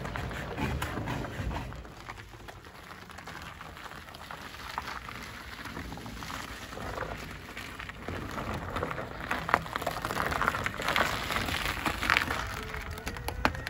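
Packed snow and ice crunching and crackling under a battery-electric forklift's tyres as it drives slowly, with no engine sound. The crackling is quieter for a few seconds, then grows louder and sharper in the second half.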